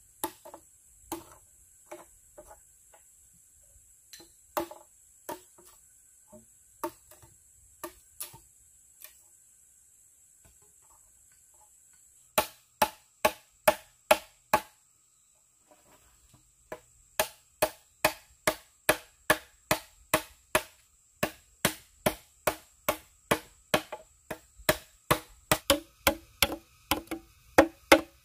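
Machete chopping into green bamboo: sharp, hollow knocks, scattered at first, then a quick run of about three strokes a second about twelve seconds in, and a steady run of about two a second through the second half that quickens near the end.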